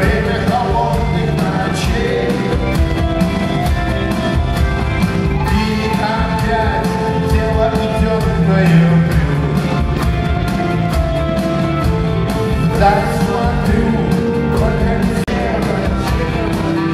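A male singer sings over a live band with drum kit, guitars and keyboards playing a song with a steady beat.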